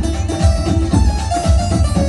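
Instrumental interlude of a live Punjabi folk song: a steady low beat about twice a second under a melody, with no singing.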